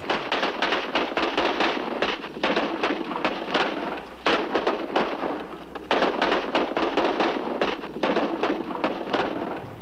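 Cartoon sound effect of fireworks crackling, in about five surges roughly two seconds apart.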